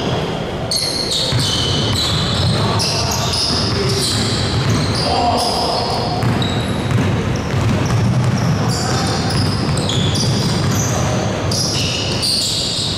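Basketball game in a gym: the ball bouncing on the hardwood court amid players' voices, with many short high-pitched squeaks, all echoing in a large hall.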